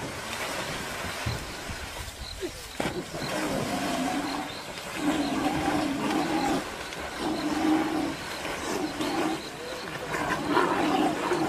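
Water splashing as an animal charges through a river, then a series of drawn-out animal calls about once a second from a few seconds in, loudest near the end, as a lion brings down an antelope in the water.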